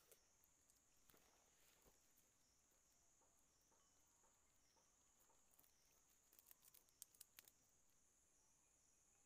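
Faint, steady, high-pitched drone of insects in the forest. About six to seven and a half seconds in, a few soft clicks and rustles of hands working at the stick snare in the leaf litter.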